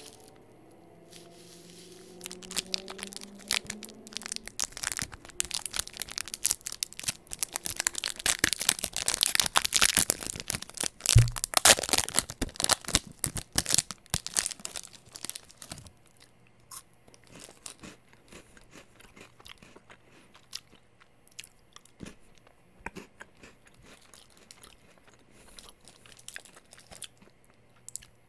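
Plastic wrapper of a mini KitKat bar being crinkled and torn open by hand. A dense crackle builds to its loudest through the middle, with a single thump about eleven seconds in, then thins to scattered small crackles.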